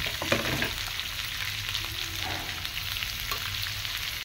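Roughly chopped onions and green chillies sizzling steadily in hot oil in a kadhai, with a few scrapes of a slotted metal spatula against the pan.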